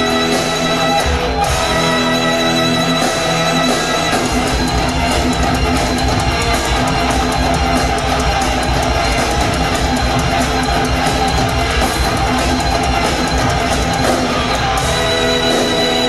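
Rock band playing an instrumental live: electric guitar, bass and drum kit. The bass and drums come in heavier about four seconds in.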